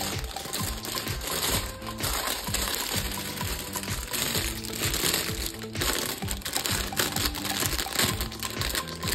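Plastic packaging crinkling and crackling as toys are unboxed by hand, over background music with a steady beat.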